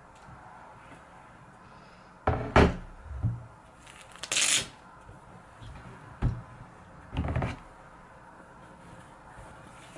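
A laptop being handled and slid into a felt laptop sleeve: a few knocks, loudest about two and a half seconds in, and short scraping rustles about four and seven seconds in.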